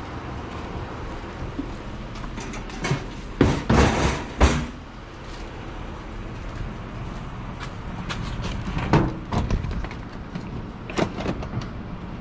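Knocks, bangs and clatter of junk being handled and shifted in a dumpster, with a cluster of loud bangs about three to four and a half seconds in and more knocks near the end.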